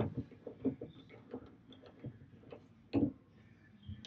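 Light, irregular metal ticking and clicking as an Allen socket is turned by hand, threading a bolt through a dipstick adapter into its backing plate on an oil pan. There is a louder click about three seconds in.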